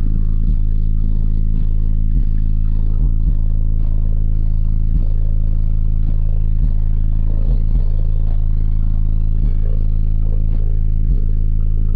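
Four Skar ZvX 15-inch subwoofers in a blow-through box tuned to 38 Hz playing bass-heavy music at high volume, heard from inside the truck's cab: loud, steady deep bass notes with a thumping beat about once a second, with clatter and rattle mixed in.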